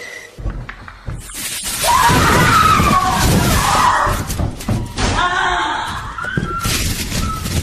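Shrieking, wailing voices over a loud noisy crash-like rush, starting about a second in.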